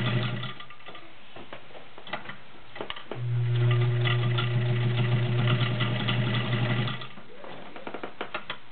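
Vintage all-metal Kenmore 1206 zigzag sewing machine running, stitching through layers of leather. It stops about half a second in, runs steadily again for about four seconds from about three seconds in, and stops; small clicks and knocks of the machine and the work are heard in the pauses.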